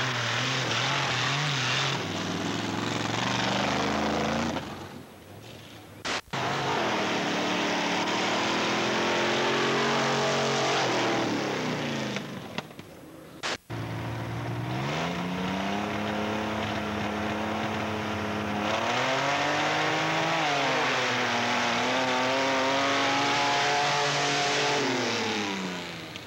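Engines of off-road drag-racing vehicles running hard at full throttle, their pitch climbing and falling as they accelerate down the gravel course. The sound breaks off abruptly twice between runs.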